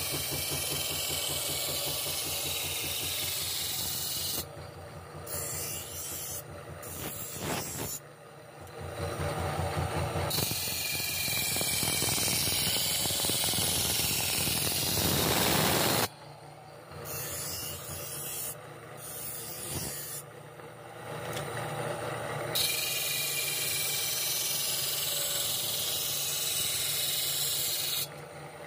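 Steel sickle blade being sharpened on a spinning grinding wheel. A loud hissing rasp of steel against the wheel comes in three stretches of several seconds each, with the belt-driven wheel running on its own in between.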